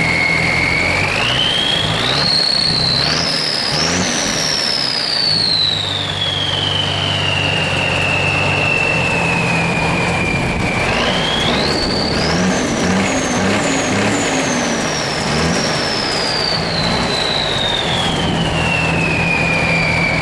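M35A2C army truck's turbocharged multifuel six-cylinder diesel idling with a loud, steady turbo whistle, revved twice. Each time the whistle climbs in quick steps to a much higher pitch, then slowly sinks back to its idle note.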